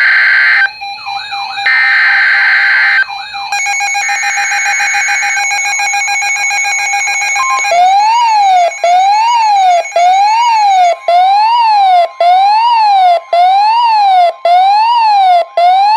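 NOAA Weather Radio warning alert tones: three short bursts of screeching SAME digital header data, then a steady tone, then a loud siren-like warble rising and falling about once a second. From about eleven seconds in, a steady 1050 Hz warning alarm tone sounds under the warble.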